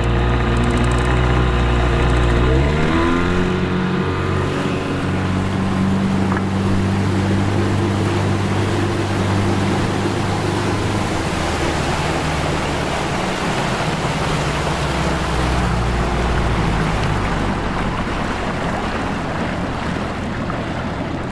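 Boat motor speeding up about three seconds in, then running steadily under way, with wind and water noise rising as the boat gets going.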